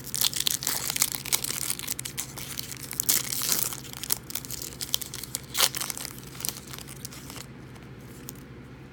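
Foil trading-card pack wrapper being torn open and crinkled, a dense run of crackles that dies down about seven and a half seconds in.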